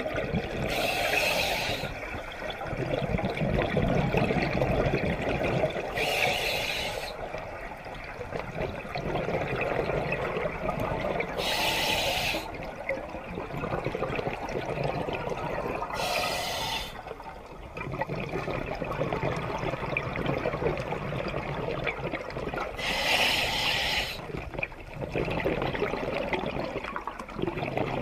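Scuba diver breathing underwater through an open-circuit regulator: a short rush of exhaled bubbles about every five or six seconds, five times, over a steady low rumble of water.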